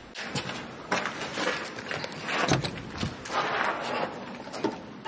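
Irregular footsteps crunching and scuffing over debris, with scattered knocks and scrapes; the loudest step comes about halfway through.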